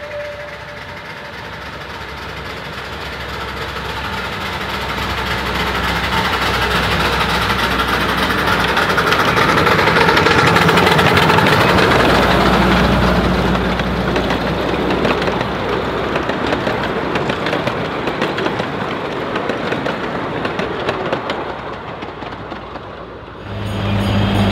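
15-inch gauge live-steam 4-4-0 locomotive and its train running past on the track: a dense rushing mechanical noise that swells as it approaches, peaks as it passes and fades as it moves away. About a second before the end it cuts abruptly to a steady low hum.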